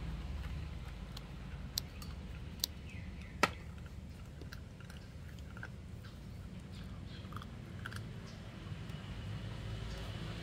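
A puppy chewing and crunching duck bones: scattered sharp clicks and cracks, three standing out in the first few seconds, the loudest about three and a half seconds in, then smaller ticks.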